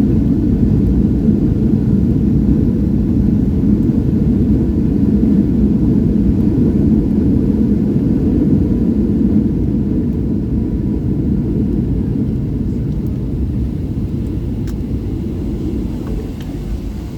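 Boeing 757 landing roll, heard as a low, steady rumble that slowly fades as the jet slows on the runway.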